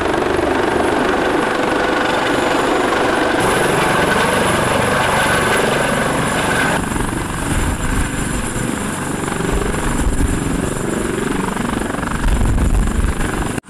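Airbus (Eurocopter) AS365 Dauphin police helicopter landing: steady turbine whine and rotor noise as it descends and settles onto the grass. Rotor downwash buffets the microphone with low gusts near the end.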